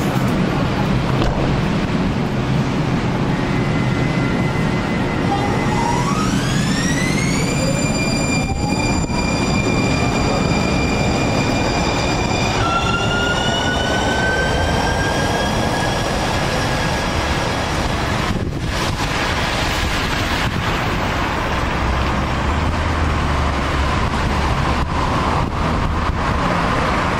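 MAX light rail train pulling out of the station under steady rain. Its traction motors give an electric whine of several tones that rises, holds, steps up and rises again as the train gathers speed.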